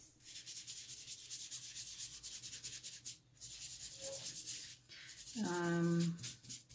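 Paintbrush scrubbing paint onto the textured side of mixed media paper: rapid scratchy back-and-forth strokes with short pauses. A short hummed note about five and a half seconds in.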